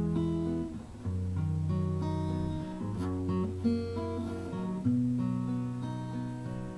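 Background music on acoustic guitar, strummed and plucked chords changing every second or so.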